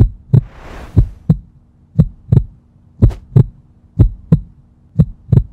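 Heartbeat sound effect: paired lub-dub thumps about once a second over a steady low hum, with a hissing swoosh in the first second.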